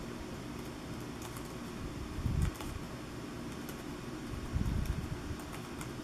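Irregular clicks of keys being pressed one finger at a time on the OneGx1 7-inch mini laptop's small keyboard, a couple of strokes a second, over a steady fan-like hum. Two low thuds, about two seconds in and again near five seconds, are the loudest sounds.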